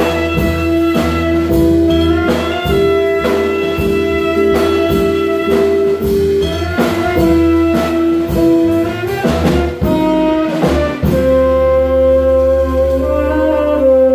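Live small-group jazz: tenor and alto saxophones holding long notes over drum kit, upright bass and electric guitar. A busy drum fill comes about two-thirds of the way in, then the band holds one long sustained chord for the last few seconds.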